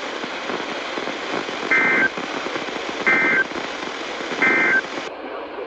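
A NOAA Weather Radio receiver playing the EAS/SAME end-of-message data signal: three short, two-tone digital warbling bursts about a second and a half apart over steady radio static, marking the close of the weekly test broadcast.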